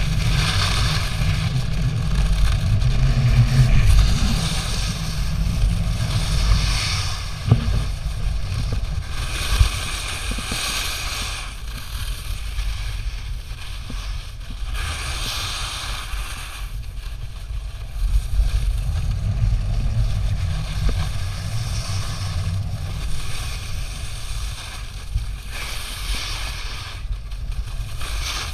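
Snowboard sliding and carving down a snow slope, a hiss that swells and fades with each turn every few seconds, over constant wind buffeting the microphone.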